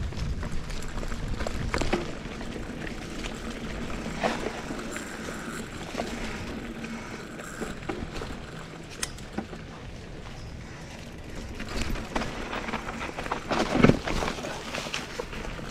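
GT Aggressor Pro mountain bike rolling along a dirt singletrack: tyre noise on dirt and leaves, with the frame and drivetrain rattling and knocking over bumps. The loudest knock comes near the end.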